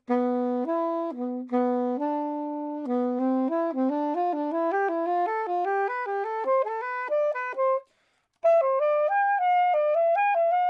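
Soprano saxophone playing a single melodic line: a few held low notes, then a quick pattern repeated step by step higher up the range. It breaks off for a moment near the eighth second and goes on in a higher register; this is a phrase pattern being practised through rising keys.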